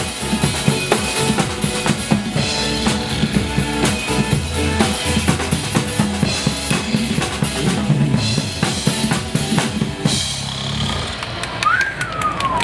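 Drum kit played along to a Mandopop song's backing track: kick drum, snare and rimshots over the music. The drumming thins out about ten seconds in, and a high tone slides downward near the end.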